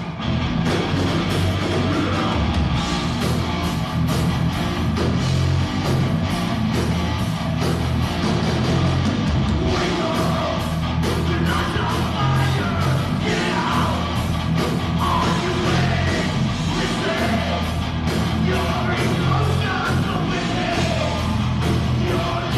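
Heavy metal band playing live: electric guitars, bass and drum kit, with a shouted lead vocal.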